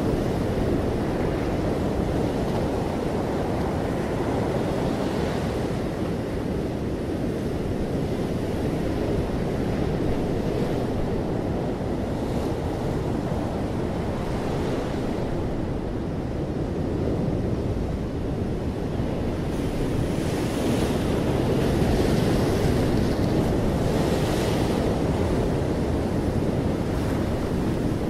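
Ocean surf breaking over rocks and washing up a sandy beach: a steady deep rumble, with the hissing wash of incoming waves swelling several times in the last third.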